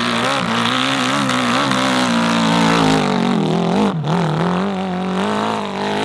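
Motorcycle engine revving unevenly, its pitch rising and falling, with a sharp drop in revs about four seconds in.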